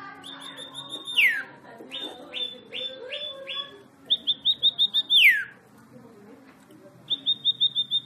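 Caged songbird singing in repeated phrases: a quick run of five or six short, high, even notes, then a whistle that slides steeply down. About a second in comes the first phrase, then a slower string of separate notes, a second phrase about five seconds in, and a third starting near the end.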